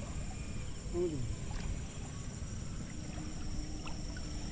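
Outdoor ambience of shallow water and wind: a steady low rumble with a continuous thin high-pitched drone above it, and a brief falling voice-like sound about a second in.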